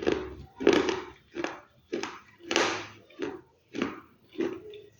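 Crisp food crunching close to the microphone: about eight sharp crunches at an even pace, the loudest a little past halfway.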